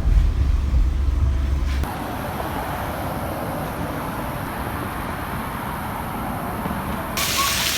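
Steady rushing vehicle noise, like a car in motion, with a heavy low rumble in the first two seconds; the sound changes abruptly twice.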